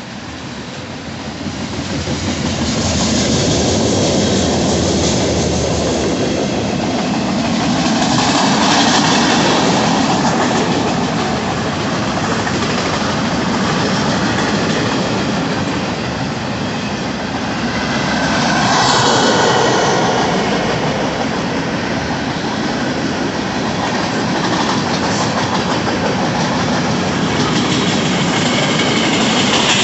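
Freight train cars rolling past close by: a steady noise of steel wheels on the rails that swells and eases every few seconds as the cars go by.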